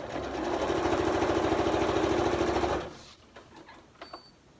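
Electric sewing machine stitching a seam through denim at a fast, even rhythm, picking up speed over the first second, then stopping abruptly about three seconds in as it runs off the edge of the fabric. A few faint clicks follow.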